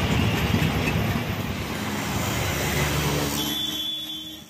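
Dense city road traffic: a mix of motorcycles, auto-rickshaws, cars and a bus running together in a low rumbling din, fading away near the end.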